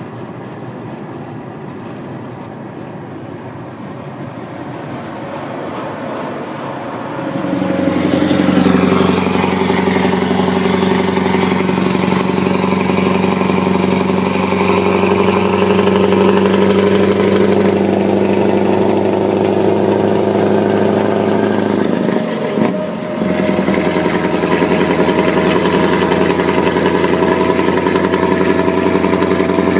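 Scania V8 truck engine running at steady revs, heard from a car travelling alongside. It gets much louder about seven seconds in as the car comes level with the truck, dips briefly about three quarters of the way through, then carries on steadily.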